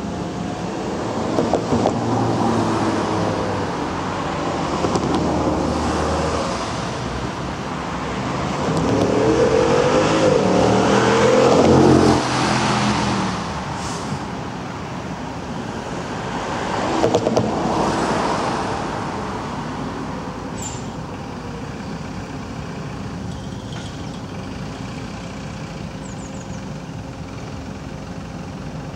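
Road traffic: cars pass by one after another, each engine note swelling and fading, the loudest about ten seconds in. After that it settles to a quieter steady traffic hum.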